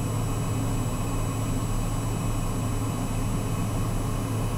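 Socata TBM 910's Pratt & Whitney PT6A turboprop engine idling on the ground, a steady drone with a low hum, heard inside the cockpit.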